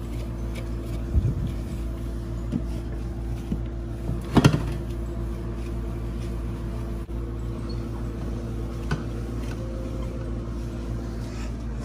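A refrigerator being wiped down with a cloth: light knocks about a second in and a louder clunk about four and a half seconds in, over a steady low hum.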